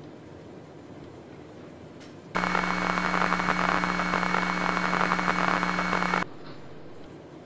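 A loud burst of static-like electronic noise with a steady low hum and high whine in it, cutting in suddenly and stopping abruptly about four seconds later, over faint room tone.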